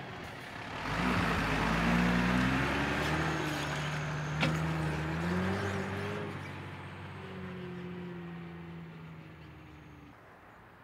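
A road vehicle's engine accelerating past and away. Its pitch rises, drops as if at a gear change, rises again, then levels off and fades over the last few seconds. A sharp click comes about four and a half seconds in.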